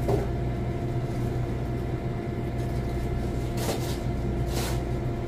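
Steady low machine hum with a constant tone, and a cloth rag wiped over stainless steel, with two short swishes about three and a half and four and a half seconds in.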